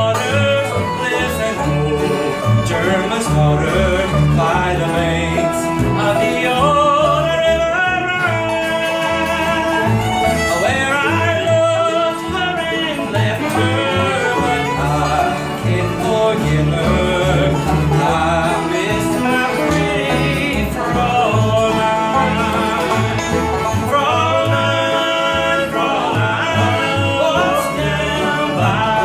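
Live country band playing, with fiddle and guitar over a steady bass beat.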